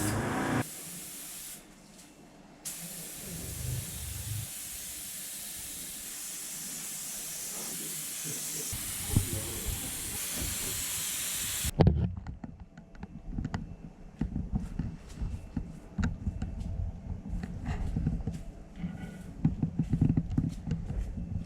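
Paint being sprayed: a short hissing burst, then a long steady hiss that cuts off suddenly about twelve seconds in. After it, irregular knocks and handling clatter.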